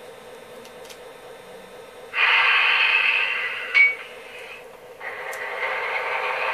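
Model train locomotive sound effects from a small speaker: a steady hum, then a loud hiss that starts suddenly about two seconds in, drops out for a moment after four seconds and returns about five seconds in.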